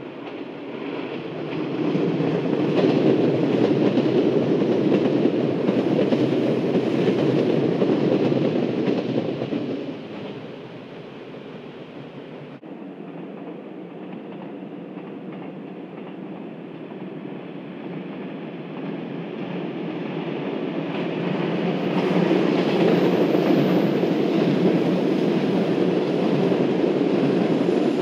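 JR 183 series electric limited-express train running past on the track, its running and wheel noise swelling within the first couple of seconds, holding loud, then fading from about ten seconds in. Part way through the sound drops abruptly to a quieter level, then a 183 series train is heard approaching again, growing louder and passing close near the end.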